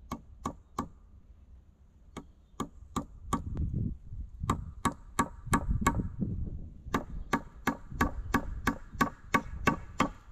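Small hatchet chopping wood: quick, sharp knocks about three a second, in short runs separated by brief pauses.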